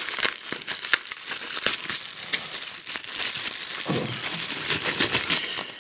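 Plastic bubble wrap crinkling and crackling as it is pulled open and unwrapped by hand, a dense run of short crackles.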